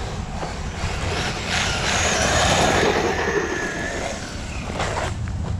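Electric RC monster truck running, its motor whine and tyre noise swelling about a second and a half in and fading near the end, over a steady low rumble.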